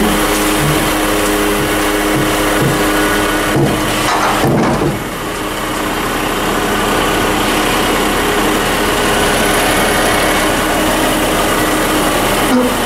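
Hook-lift truck's diesel engine running steadily under load, driving the hydraulics as the hook arm pulls a full steel roll-off container up onto the truck bed; the driver judged the container still slightly too heavy.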